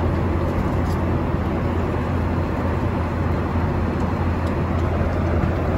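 Steady airliner cabin noise in flight: an even rumble of engines and airflow, with a couple of faint clicks.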